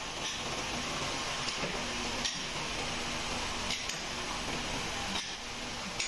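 Steady machinery noise in a sandal-sole moulding workshop, with a few light metallic clinks scattered through it.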